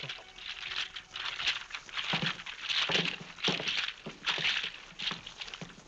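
A pearl necklace rattling against a hidden microphone, amplified into loud crackling clatters. It comes in about eight irregular bursts that sound like a thunderstorm over the sound system.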